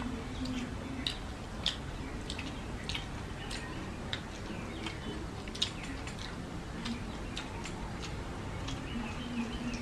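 Eating sounds: chewing and irregular wet mouth smacks and clicks, a few a second, with the squelch of hands mixing water-soaked rice.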